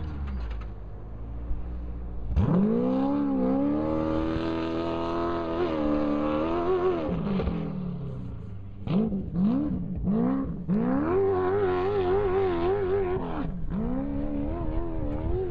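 Off-road race vehicle engines revving hard in the distance: the pitch climbs, holds high and drops several times, with quick short blips near the middle and a wavering, rapidly changing pitch in the later revs.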